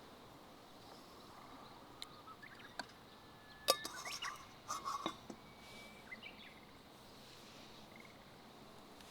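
A few sharp clicks and clinks, loudest a little past the middle, over a faint outdoor background with a few short high bird chirps.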